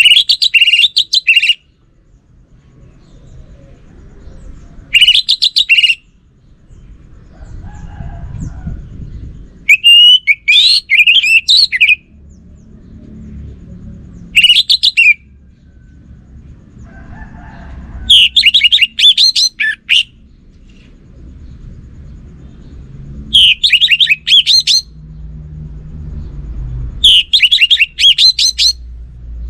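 Orange-headed thrush (anis merah) singing: about seven loud phrases of rapid, varied whistled notes, each a second or two long, separated by pauses of a few seconds. A low rumble runs underneath.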